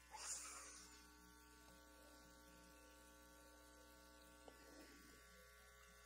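Near silence: a faint, steady electrical mains hum and buzz, with a brief soft hiss just after the start.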